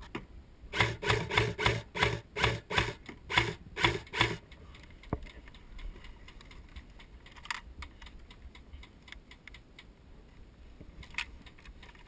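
Quick rhythmic rustling steps of an airsoft player moving on foot, about three a second for some three seconds, then a few scattered clicks and rustles of gear.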